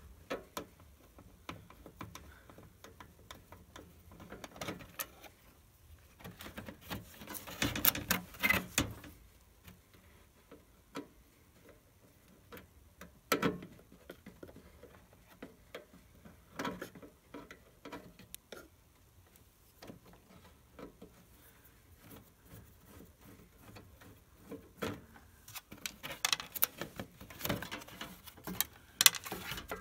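Hand screwdriver clicking and ticking on the screws and sheet-metal housing of an RV furnace as fasteners are backed out, with scattered small knocks and rattles of metal parts. Denser, louder clusters of clicks and rattles come about eight seconds in and again near the end, when the blower motor assembly is worked loose.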